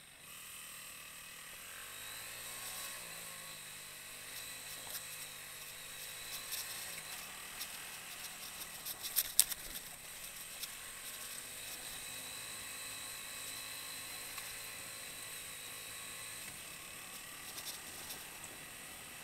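Motorcycle engine running under way, its pitch rising and falling with the throttle, with a brief flurry of knocks and rattles about nine seconds in.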